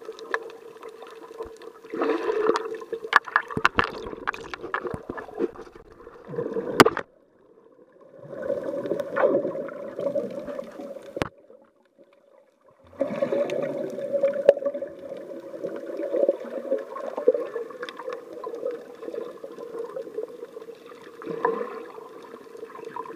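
Muffled underwater water noise picked up through a waterproof camera housing while snorkellers swim around it: a hollow, steady rush with sharp knocks now and then. It drops almost to nothing twice, about seven seconds in and again from about eleven to thirteen seconds.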